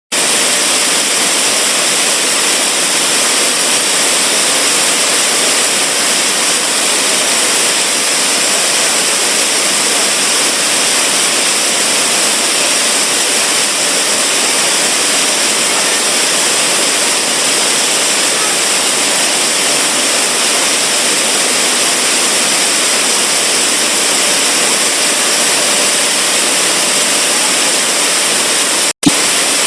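Maize milling plant machinery running: a loud, steady mechanical rushing with a faint high whine and no variation. It breaks off for an instant with a click near the end.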